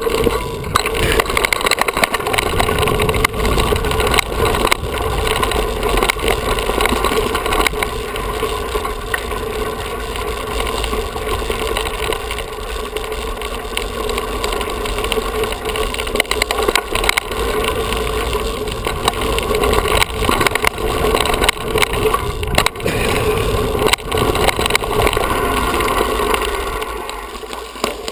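Mountain bike running fast downhill on a dirt trail: a constant rush of tyres on dirt and wind on the microphone, with a steady stream of rattles and knocks from the bike over rough ground. It grows quieter near the end.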